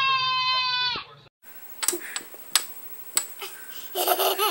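A baby's long, high-pitched squeal, held steady and cut off abruptly about a second in. Then come a few sharp taps, and near the end a baby laughing.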